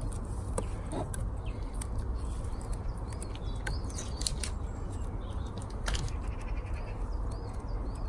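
Outdoor background of a steady low rumble, with a small bird chirping in short, repeated calls and a few light clicks and taps.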